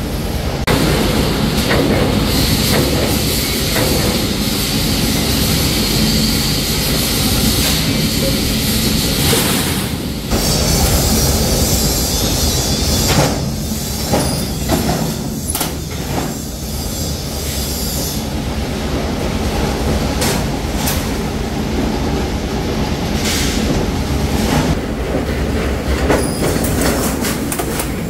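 Galvanized steel sheets scraping and sliding across the bed of a mechanical guillotine shear over the machine's steady running, with metallic clanks and knocks scattered through the second half.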